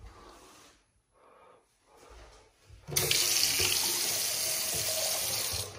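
Bathroom sink faucet turned on about halfway through, its stream of tap water running steadily into the basin and drain, then shut off just before the end.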